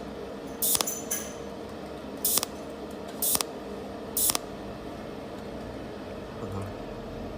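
Steady machine hum with a constant tone, broken by about five short, sharp hisses in the first four and a half seconds, each lasting a fraction of a second.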